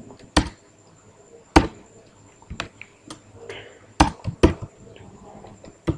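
Computer keyboard typing: single sharp keystrokes, about eight of them, irregularly spaced with pauses between.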